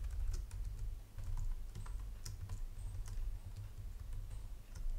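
Computer keyboard typing: irregular, fairly faint key clicks as a line of code is entered.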